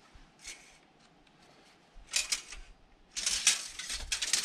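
Metal tape measure being handled against a steel pallet fork: faint scraping at first, then a short scratch about two seconds in and a dense run of scratchy clicks and rustles over the last second or so.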